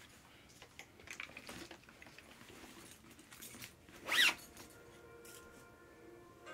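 Zipper on a fabric gym duffel bag pulled shut in one quick stroke about four seconds in, the pitch of the rasp rising and falling, after some faint rustling of the bag.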